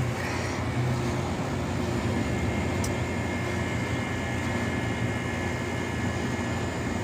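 Refrigeration condensing unit running: a steady machine hum from its fans and compressor, with a faint steady high whine over it.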